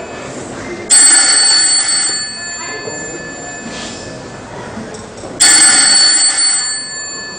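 Telephone ringing twice, each ring lasting about two seconds and the second coming about four and a half seconds after the first.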